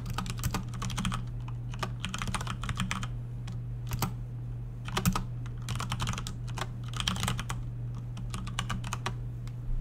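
Typing on a computer keyboard: quick bursts of keystrokes with short pauses between them, over a steady low hum.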